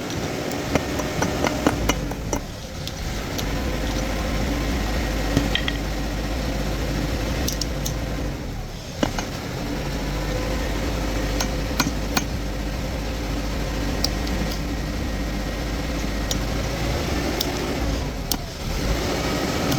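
Steady low machine hum with scattered light metallic clicks and taps of tools, dropping away briefly three times.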